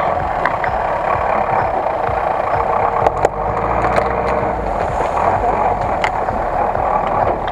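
GAZ-66 off-road truck driving slowly over rough ground close by, its engine running steadily under load. A couple of short sharp cracks come through, about three and six seconds in.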